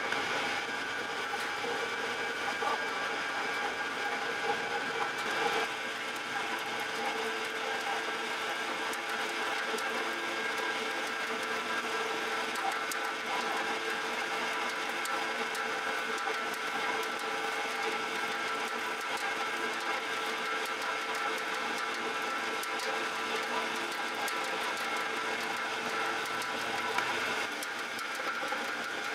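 Commercial bakery dough mixer running steadily, its motor and hook turning in the stainless-steel bowl as flour and water are mixed into dough: an even mechanical whir with a constant hum.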